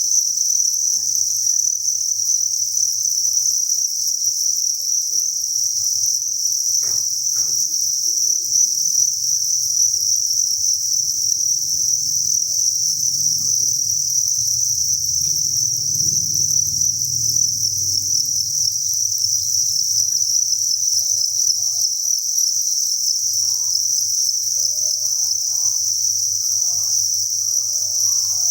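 Dense chorus of many farmed crickets chirping together in an unbroken high-pitched trill, over a faint low hum.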